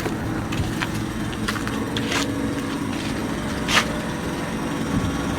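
Small engine running steadily with an even drone, with two brief noisy swishes about two seconds in and near the four-second mark.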